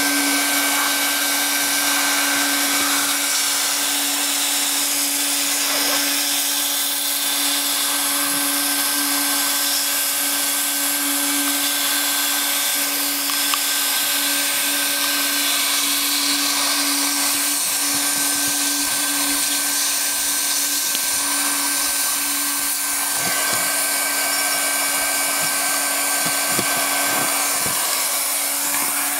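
Hand-held hot-air plastic welding gun running continuously while welding an HDPE liner patch: a steady blowing hiss over a constant motor hum. A few light handling knocks come in the last few seconds.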